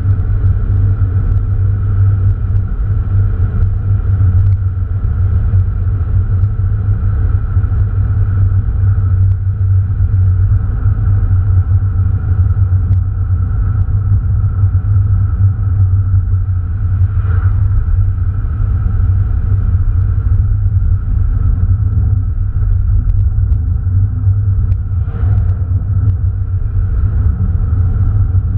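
Interior sound of an Opel Astra Bertone Turbo's turbocharged four-cylinder engine at a steady cruise: an even, low drone mixed with road noise. Two brief whooshes come about two-thirds of the way through and near the end.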